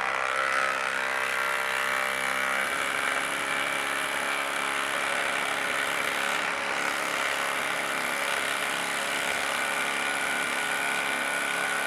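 Ryobi P238 18V brushless impact driver hammering steadily as it drives an 8-inch lag screw into solid wood with no pilot hole. The tone turns rougher a little under three seconds in as the screw goes deeper.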